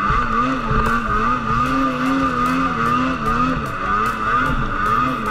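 Snowmobile engine running under throttle, its pitch wavering up and down as the throttle is worked, with a steady high whine over it.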